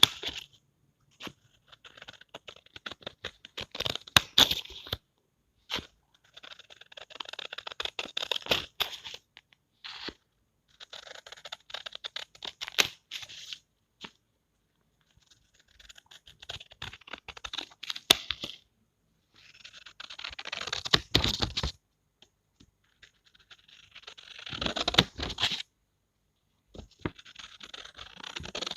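Scissors cutting through paper in a series of runs of crisp snipping and crackling, each lasting a few seconds, with brief pauses between them.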